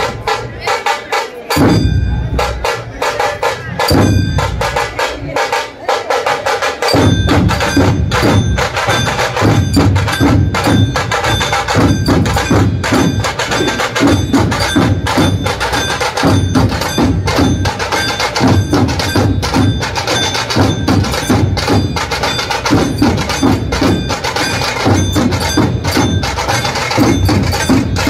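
Dhol-tasha ensemble drumming: large barrel dhols beat under the sharp, rapid strokes of tasha drums. At first there are only a few heavy dhol strokes a couple of seconds apart, then about seven seconds in the full dhol section joins in a dense, continuous beat.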